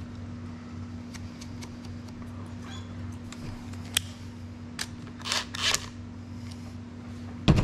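Socket wrench on a long extension working a nut on the small generator engine: scattered metal clicks, then two short ratcheting bursts about five seconds in and a loud knock near the end, over a steady low hum.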